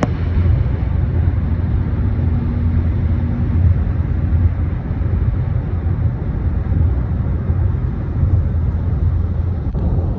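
Steady low rumble of a car driving along a road, heard from inside the cabin: tyre and engine noise.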